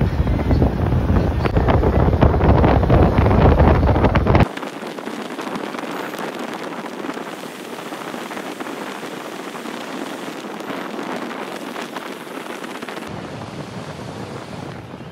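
Wind buffeting the microphone and road noise from a bus driving with its window open. About four and a half seconds in the sound abruptly drops: the deep rumble cuts out, leaving a thinner, quieter steady rushing.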